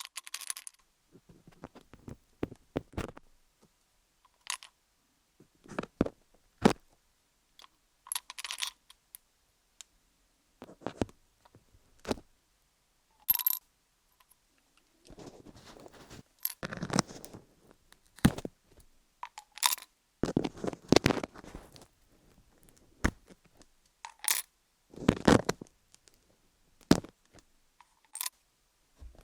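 Colored pencils scribbling and tapping on wooden pins: irregular sharp clicks and short scratchy strokes with quiet gaps between them. The strokes come longer and closer together from about halfway through.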